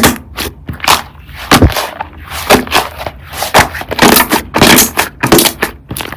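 Slime being squeezed and pressed by hand, giving irregular sticky pops and clicks, with one dull thump about one and a half seconds in.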